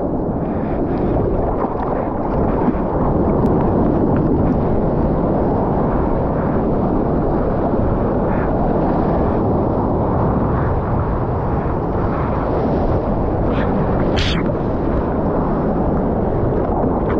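Steady, muffled rush of seawater and small breaking waves churning around a surfer's water-level action camera. A brief brighter hiss of spray comes about fourteen seconds in.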